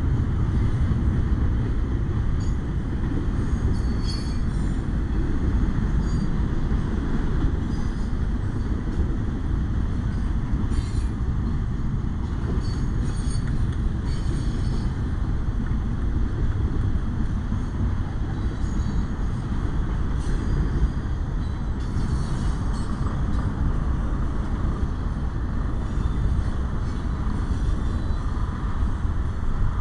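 Double-stack intermodal freight cars rolling steadily through a grade crossing: a continuous low rumble of wheels on rail, with brief high-pitched squeals now and then.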